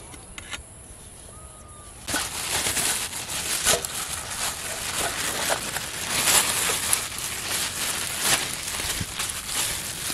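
Thin plastic bag crinkling and rustling as cooked rice is shaken out of it into a steel bowl, a dense crackle that starts about two seconds in.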